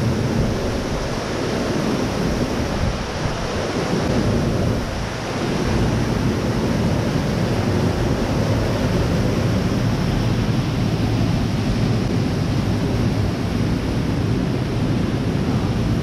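Artificial indoor waterfall splashing steadily, thin streams of water falling from a stone wall onto the rocks below.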